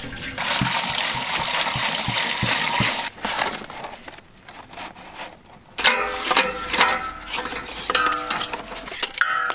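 Water gushing from a plastic jerry can into a large metal cooking pot for about three seconds. From about six seconds in, background instrumental music.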